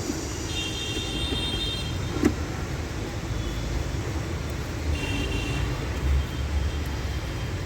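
Steady background traffic rumble, with a short knock about two seconds in.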